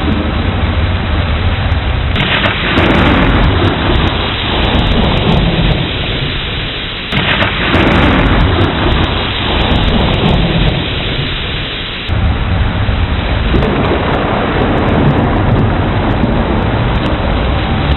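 Thunderstorm: steady heavy rain with rolling thunder that breaks in sharply about two seconds in, again around seven seconds and around twelve seconds, each clap rumbling on for several seconds.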